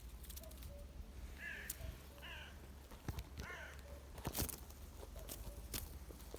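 A bird gives three short, harsh calls about a second apart, with softer short notes in the background. Several sharp clicks or knocks follow in the second half.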